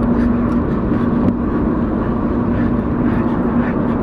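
Car cabin noise while driving: a steady engine drone and road rumble, heard from inside the car.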